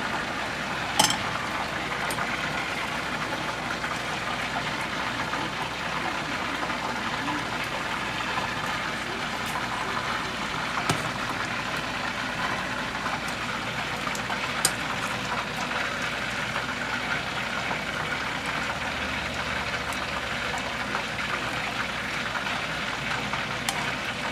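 Pot of law-oy vegetable soup simmering, a steady bubbling hiss. Three light clicks come through it: about a second in, then around eleven and fifteen seconds in.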